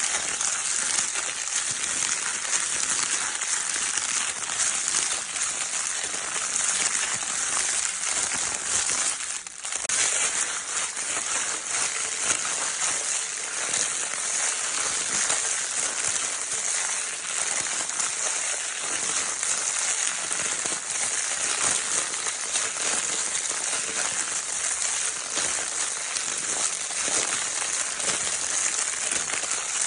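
Crinkle paper in a baby's crinkle toy being rustled without a break: a dense, steady crackle of fine crinkles, dropping away for a moment about nine and a half seconds in.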